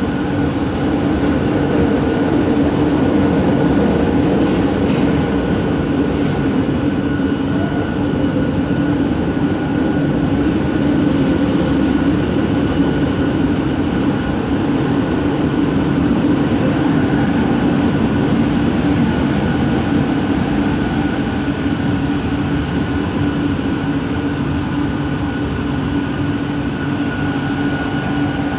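Bombardier Innovia ART 200 metro train running at steady speed, heard inside the car: a continuous rumble of running noise with a steady tone from its linear-induction motor drive.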